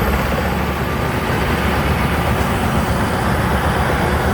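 TAMCO combine harvester's Isuzu 6HK six-cylinder diesel and harvesting machinery running steadily under load.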